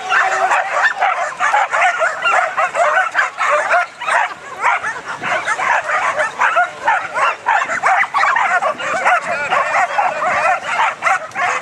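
Many dogs barking and yipping together without a break: flyball dogs worked up and straining to run at the start of a heat.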